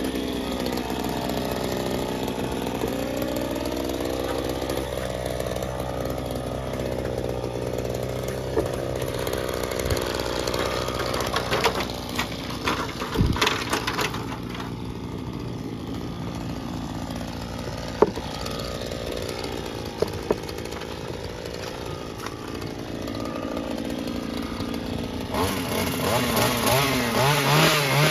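Small gas engine of lawn-care equipment running, its pitch rising and falling as the throttle changes. There are a few sharp knocks around the middle, and it revs higher near the end.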